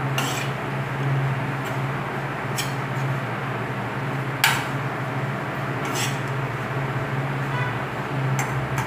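Metal spoon stirring meat and onion in a frying pan, knocking and scraping against the pan about six times, the loudest knock about halfway through, over a steady low hum and hiss.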